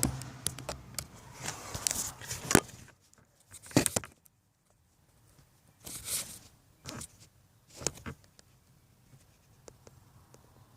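Irregular handling noises: sharp clicks and short scrapes and rustles in uneven bursts, the loudest about two and a half and four seconds in, with a quiet stretch just after the middle and a few faint ticks near the end.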